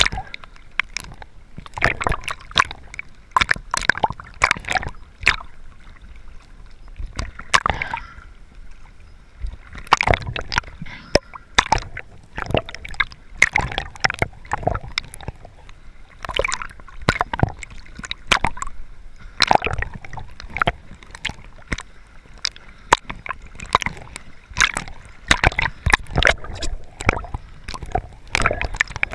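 Water sloshing, splashing and gurgling as a snorkeler swims, with the microphone passing between the surface and underwater. Many sharp, irregular clicks and knocks run throughout.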